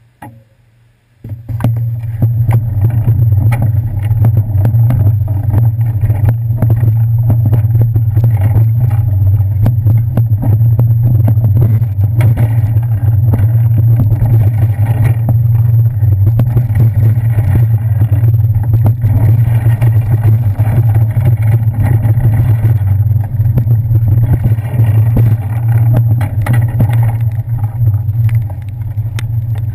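Heavy low rumble with constant rattling from a bicycle ride, picked up by a handlebar-mounted action camera in its housing; it starts suddenly about a second in as the bike gets moving and stays loud and steady.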